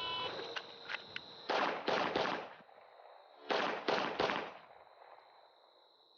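A short shot-timer beep, then a handgun fired six times: three quick shots about a third of a second apart, a pause of about a second for the switch from the strong hand to the weak hand, then three more quick shots. This is a timed 3-yard qualification string.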